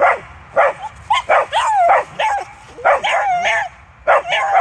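Several dogs barking, yipping and whining in quick, excited bursts, worked up by a deer in sight.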